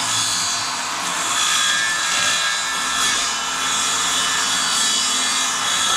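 Power saw running continuously as it cuts through wood.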